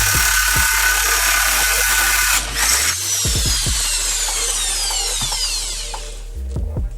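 Homemade angle grinder running at full speed, then switched off a little over two seconds in; its whine falls steadily in pitch as the disc spins down over the next few seconds. Background music plays underneath.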